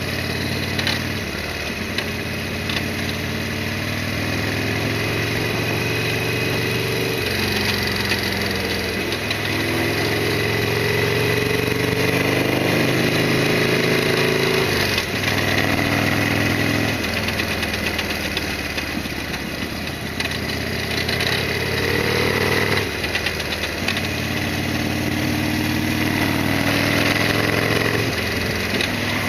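Harley-Davidson Sportster XL1200R's 1200 cc V-twin running under way, its pitch climbing as it pulls and dropping back sharply several times at gear changes or throttle lifts.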